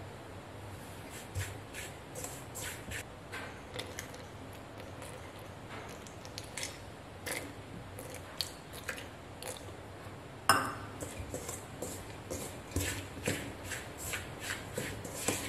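Light scattered clicks and taps of hands working wheat flour in an aluminium pot, with one sharper knock about ten seconds in. The clicks come quicker over the last few seconds as water is mixed into the flour to start the chapati dough.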